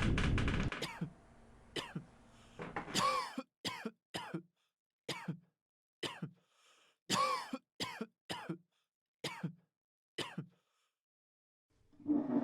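A person coughing and clearing their throat again and again: about a dozen short coughs with short silences between them. A louder rushing noise cuts off just under a second in.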